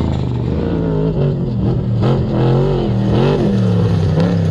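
Off-road race vehicles passing at speed on a dirt desert course: engines revving up and down repeatedly as a race truck goes by, followed by a second race vehicle.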